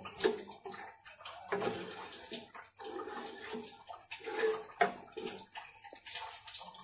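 Wooden spatula stirring milk and strawberry custard in a non-stick pan, the liquid sloshing in uneven strokes.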